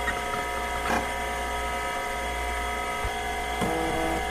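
A steady electronic drone of several held tones over a low hum, with a lower tone joining about three and a half seconds in.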